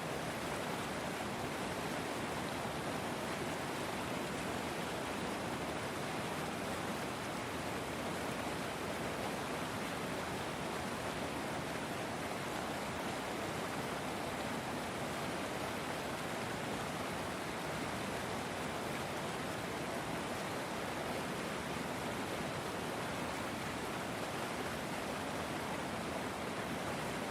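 River water flowing: a steady, even rush with no breaks or separate splashes.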